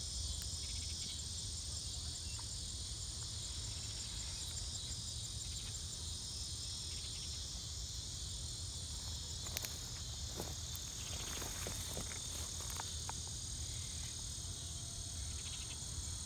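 Steady, high-pitched chorus of crickets or other insects chirring without a break, with a few faint clicks near the middle.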